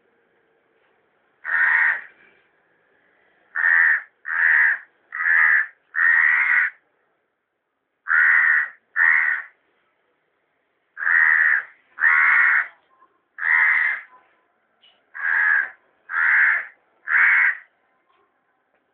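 A house crow cawing: thirteen harsh caws in short runs of two to four, with brief pauses between the runs.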